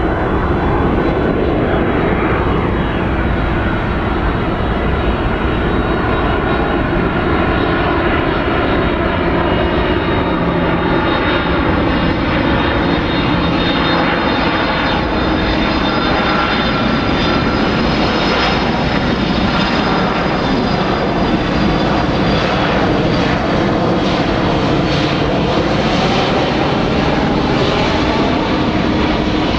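Boeing 767-300 twin-jet airliner flying low on landing approach: a steady, loud jet engine rumble with whining engine tones. The tones bend in pitch in the second half as the aircraft passes.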